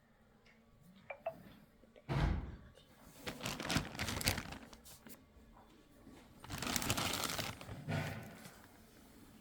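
Phone box and its packaging being handled: a sharp thump about two seconds in, then bursts of rustling and scraping.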